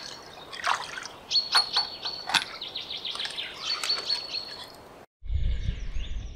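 Small birds chirping and singing in repeated short high notes, with light splashes of water. About five seconds in the sound cuts out briefly, and a low wind rumble on the microphone follows.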